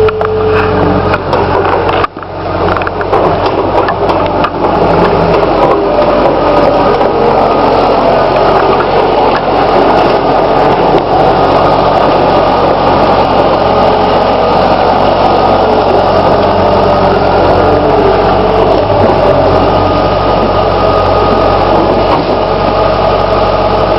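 New Holland skid steer's diesel engine running steadily.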